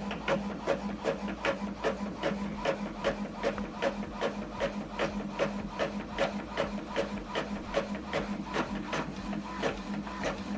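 Epson WorkForce WF-2910DWF inkjet printer printing a page: the print head carriage shuttles back and forth in a steady rhythm of about three and a half strokes a second over a low hum.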